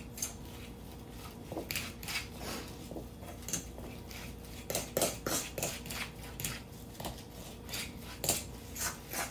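Hand mixing mashed potato, parsley and egg in a stainless steel mixing bowl on a wooden board, the metal bowl giving irregular light clinks and knocks as it is worked.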